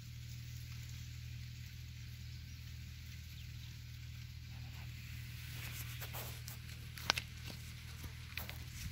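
Faint crackling and rustling of footsteps among dry sugarcane leaves on the soil, starting about halfway through, over a steady low hum.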